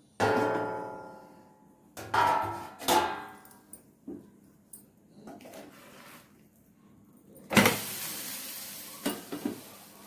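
Stainless steel lid clanging against a nonstick frying pan as it is lifted off and handled: three ringing metal strikes in the first three seconds. About seven and a half seconds in, a sudden loud sizzle that fades over the next two seconds as the urad-dal flatbread is turned over in the hot pan.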